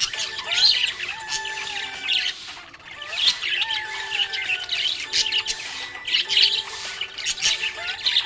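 Budgerigar chirping and warbling: fast clusters of high chirps mixed with short sliding whistles, with a brief lull about two and a half seconds in.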